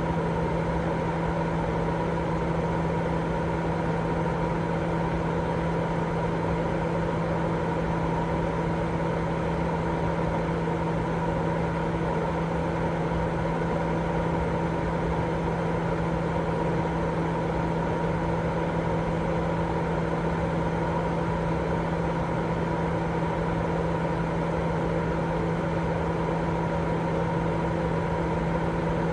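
Continuous baby-sleep white noise: an unchanging hiss over a steady low hum with a fainter higher tone.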